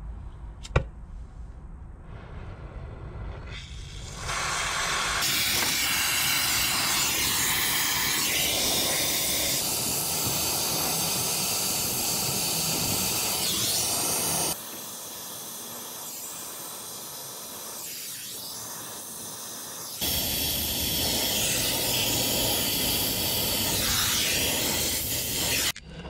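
A single sharp click just under a second in, then from about four seconds a loud, steady hiss of gas from brazing equipment. The hiss drops abruptly to a lower level at about fifteen seconds and jumps back up at about twenty.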